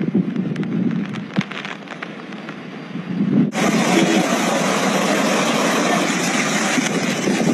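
Rain and wind for the first few seconds. After a sudden cut about three and a half seconds in, a loud, steady rush of floodwater pouring along a street.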